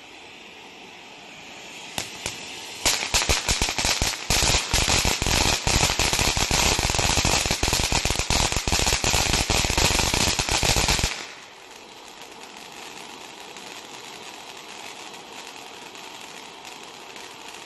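Piromax PXF214 firework fountain battery burning with a steady hiss of sparks. About two seconds in, a crackle effect sets in: a dense run of rapid, sharp cracks lasting about nine seconds. It stops suddenly, and the steady hiss carries on.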